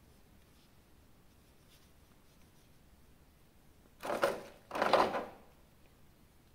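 Two short rustles of packaging being handled, one right after the other a little past the middle, over quiet room tone.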